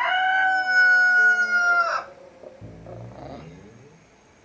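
Rooster crowing: the long held final note of a cock-a-doodle-doo, ending with a short drop about two seconds in. A quieter low rumble follows about a second later.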